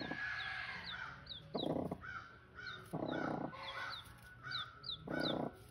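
A newly hatched chick peeping over and over in short high, falling chirps, about two a second. Four harsh, half-second cawing calls from another bird break in across it.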